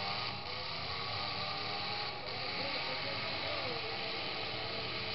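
Demolition derby pickup trucks' engines running steadily together as a continuous mechanical din, with faint crowd voices mixed in.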